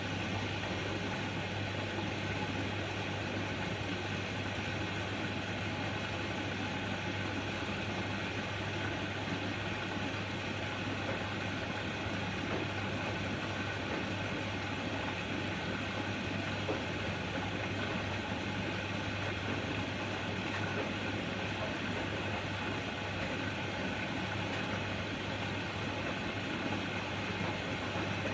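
Washing machine running with a steady, even hum that does not change through the stretch.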